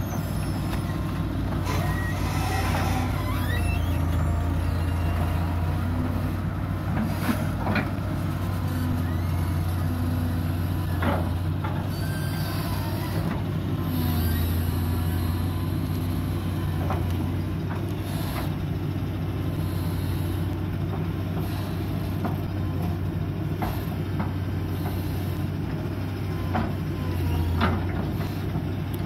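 Hitachi UH083 long-arm excavator's diesel engine running steadily under working load as the boom and bucket dig, with a few short sharp knocks from the bucket and arm.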